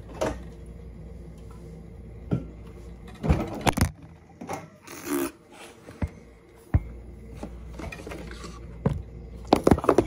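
Handling noise close to the microphone: rubbing and scraping as things are moved about, with scattered sharp knocks and clicks, a cluster of them about three and a half seconds in and several more near the end.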